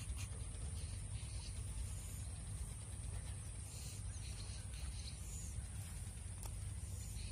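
Low, fluctuating rumble of wind on the microphone, with faint, scattered splashes from red tilapia crowding at the pond surface.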